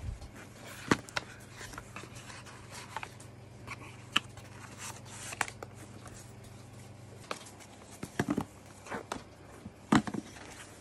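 Hands handling a cardboard product box and its paper inserts: scattered taps, clicks and rustles, the sharpest about one, four and ten seconds in. A faint low hum underneath stops about seven seconds in.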